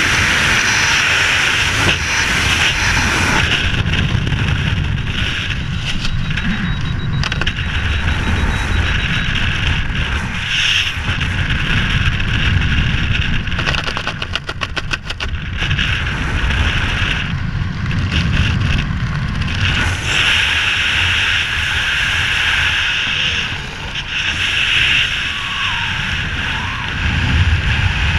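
Heavy wind buffeting the camera's microphone during a skydive, with a rapid flutter and a brief dip in loudness around the middle as the parachute opens, then steady wind noise under the open canopy.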